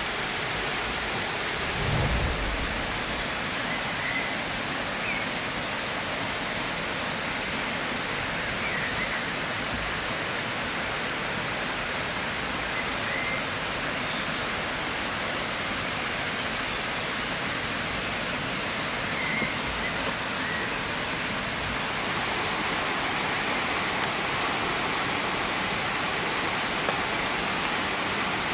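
Steady rushing outdoor ambience like running water, with a few faint short bird chirps now and then. A low thump about two seconds in.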